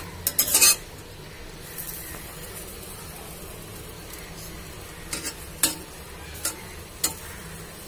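Masala-stuffed okra sizzling faintly in a stainless-steel pan, cooked without oil, while a spatula turns it. The spatula clicks against the pan in a quick cluster near the start and a few more times later.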